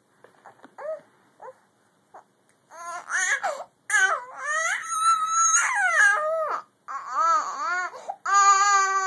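Infant crying, fussing at not being held: a few faint whimpers and catches of breath, then loud wails that rise and fall from about three seconds in, and one long held wail near the end.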